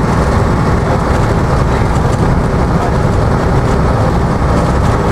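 Routemaster double-decker bus cruising, heard from the front of the upper deck: a steady engine drone and road rumble with no change in pace.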